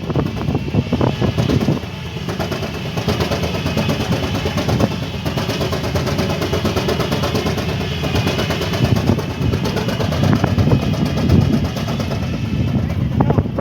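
An engine running steadily with a fast, even beat, over a faint wavering whine.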